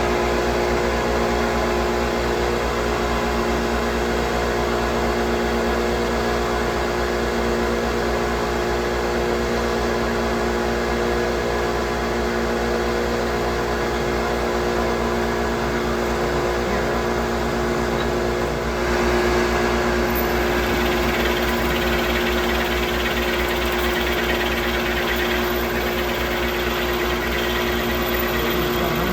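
Milling machine running steadily, its motor and spindle giving a constant hum with a few fixed tones. About two-thirds of the way through the sound gets slightly louder and harsher, as the cutter works the metal for a bolt-head counterbore.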